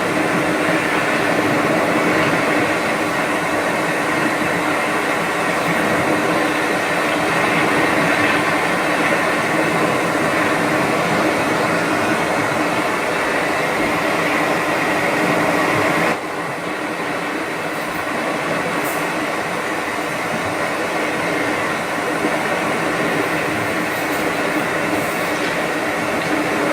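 Steady rushing hum, an even noise with a few faint steady tones in it; it drops a little in level and brightness about sixteen seconds in, and a few faint high ticks follow.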